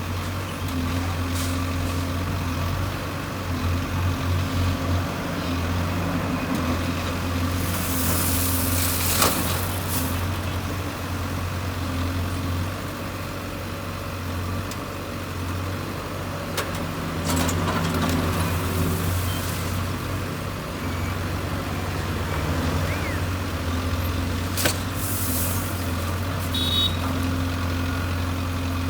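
Case backhoe loader's diesel engine running steadily while working. Two brief hissing bursts come about a third of the way in and near the end, and a few sharp knocks fall in between.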